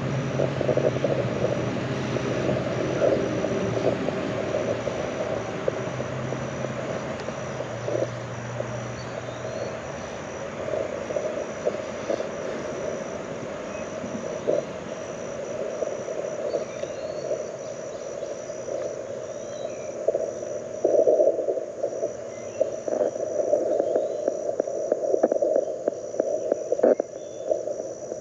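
Receiver audio from an LNR Precision Mountain Topper MTR4B CW transceiver played through a small speaker: band hiss with Morse code tones at one pitch, which get louder and busier about twenty seconds in. Under it, a low engine hum fades out about ten seconds in.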